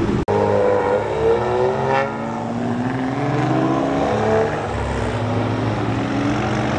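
Pickup truck engines driving past at low speed on a street, their engine notes rising as they pull away and pass. The sound cuts out for an instant about a quarter second in.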